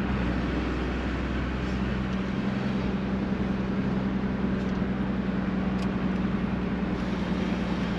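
1997 Dodge Ram 2500's 12-valve Cummins 5.9 L inline-six turbo diesel running at a steady engine speed while the truck drives, a constant drone with a held low hum and no change in revs.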